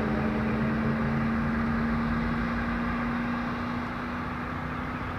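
Steady engine and traffic drone with a constant low hum, fading slowly.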